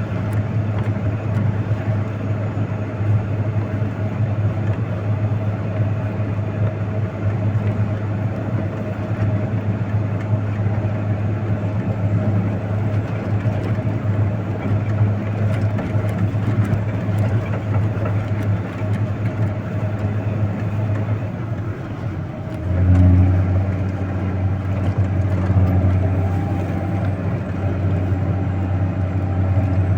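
Heavy road-clearing vehicle's engine running steadily with a low drone; about 22 seconds in its note shifts and it briefly gets louder, then settles.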